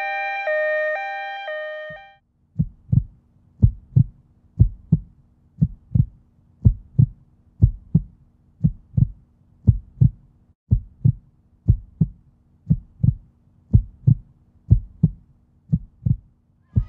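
A pulsing electronic tone plays for about two seconds and cuts off. Then a heartbeat sound effect begins: steady lub-dub double thumps, about one a second, over a faint low hum, stopping just before the end.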